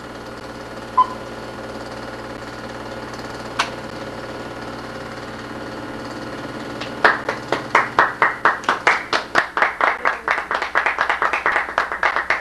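Steady low hum with two faint clicks. About seven seconds in, a small group starts clapping, a quick run of separate claps building into applause.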